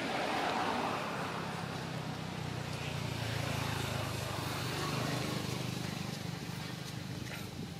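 A motor vehicle's engine running: a low, steady hum under general outdoor background noise.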